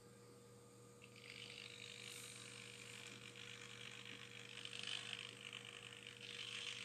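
Small hobby servos inside a quarter-scale animatronic pilot's head whirring as they turn the head. The whirring starts about a second in and cuts off near the end.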